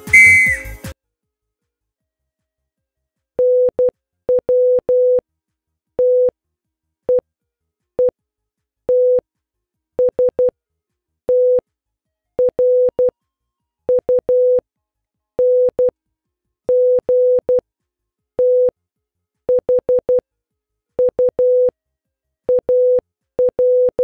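Electronic background music stops about a second in. After a short gap, a single steady beep keys out a Morse code message in short dots and longer dashes: a practice bulletin sent for listeners to copy down and decode.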